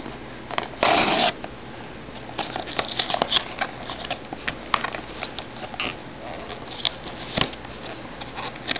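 Cardboard box being torn open by hand: a loud rip about a second in, then scattered scrapes, clicks and crinkles as the flaps are pried apart.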